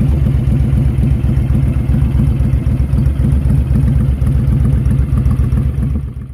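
Honda Fury's 1312 cc V-twin idling through an aftermarket Cobra exhaust, a steady pulsing beat. The sound fades out near the end.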